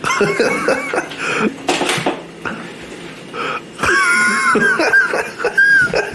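A person's wheezing laughter: high, squeaky drawn-in squeals broken by coughing gasps, strongest near the end.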